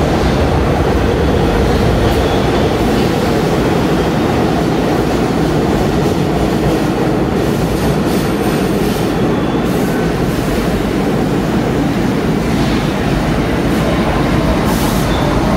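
R68/R68A subway train standing at an underground platform: a steady, loud rumble of the train and station with no distinct events.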